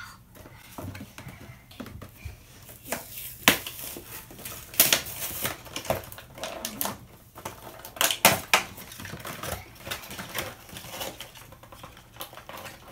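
Cardboard and clear plastic toy packaging being pried and pulled open by hand: irregular crackling, clicks and snaps, with a few sharper snaps about three and a half, five and eight seconds in.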